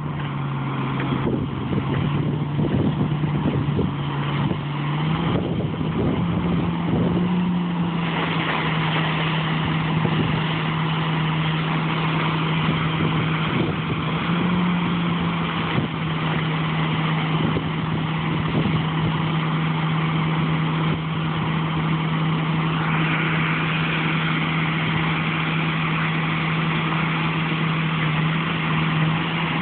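Heavy harvest machinery running steadily: a constant engine hum that steps up in pitch about five seconds in, with a louder rushing, mechanical noise over it from about eight seconds in.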